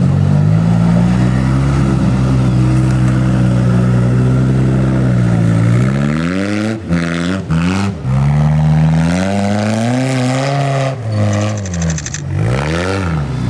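Off-road trial buggy's engine running at steady high revs, then revving up and down repeatedly from about six seconds in, with brief drops in between, as the buggy tackles a steep dirt climb.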